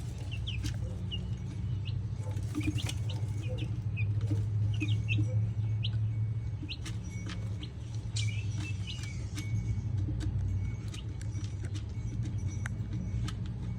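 Wyandotte chicks peeping in a brooder, many short high cheeps scattered throughout, with light scattered taps, over a steady low hum.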